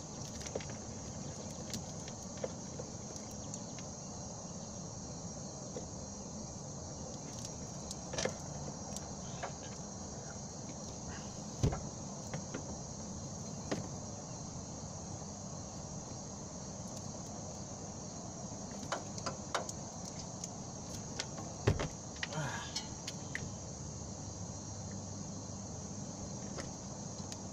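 Steady high-pitched insect chirring, with a few sharp clicks and snips from hand wire strippers working on wire insulation.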